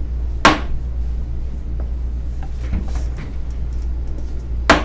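Two sharp knocks, one about half a second in and one near the end, over a steady low hum, with faint shuffling in between as people sit down on chairs.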